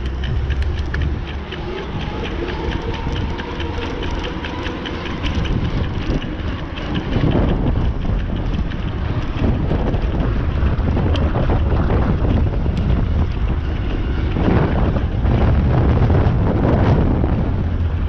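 Wind buffeting the microphone while riding a bicycle, over a steady low road rumble, with louder gusts about seven seconds in and again near the end. A fast, even ticking runs underneath for the first few seconds.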